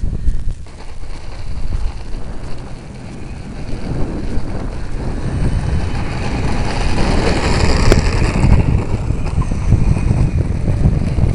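Wind buffeting the microphone of a small camera riding on a radio-controlled model Cessna in flight, a steady rumbling rush that grows louder and hissier past the middle and then eases.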